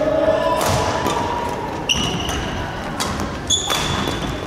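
Badminton rackets striking the shuttlecock in a rally, about four sharp hits with the hall ringing after each, along with short squeaks of court shoes on the wooden floor.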